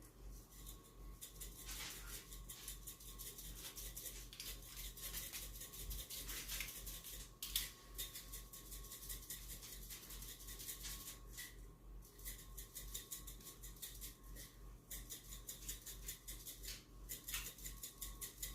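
A shaker jar of crushed red pepper flakes being shaken and tapped: a faint, fast, irregular rattle of small taps and scratches.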